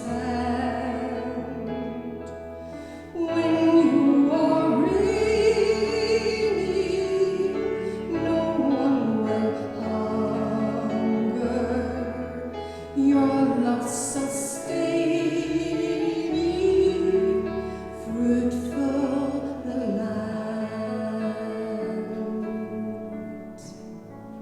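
A hymn sung by voices over sustained instrumental accompaniment, phrase by phrase, growing quieter in the last couple of seconds as it closes.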